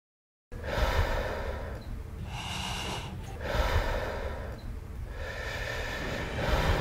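A person breathing hard close to the microphone, a run of long breaths about a second and a half each, over a steady low rumble of wind on the microphone.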